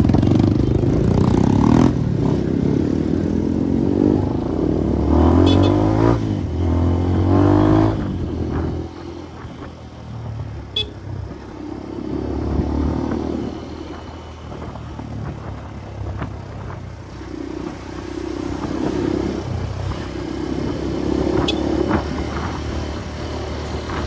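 Motorcycle engine heard from the rider's seat while riding, rising in pitch as it accelerates several times in the first eight seconds, then running quieter and steadier.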